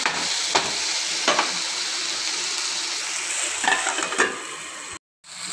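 Chopped onion, tomato and capsicum sizzling in oil in a non-stick kadai while a spatula stirs them, knocking against the pan a few times. About three and a half seconds in, a steel plate is set over the pan as a lid with a few clinks, and the sizzling turns quieter.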